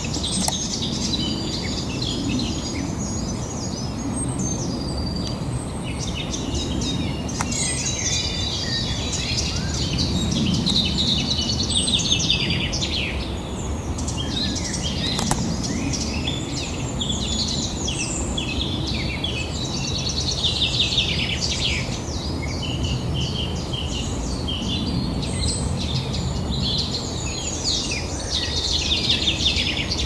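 Several small songbirds singing and chirping at once, a continuous chorus of quick trills and repeated high notes, over a steady low background rumble.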